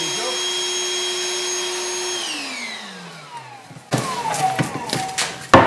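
Ryobi portable vacuum cleaner running with a steady whine, then switched off about two seconds in and spinning down, its pitch falling over about two seconds. Then plastic knocks and clatter as the hose and 3D-printed dust-collector attachment are handled, with a loud knock near the end.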